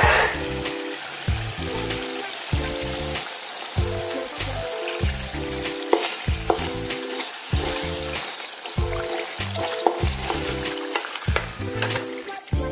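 Chunjang (Chinese black bean paste) frying in oil in a pan with a steady sizzle, fried until the oil separates from the paste. A wooden spatula stirs it, with occasional sharp ticks against the pan. Rhythmic background music plays underneath.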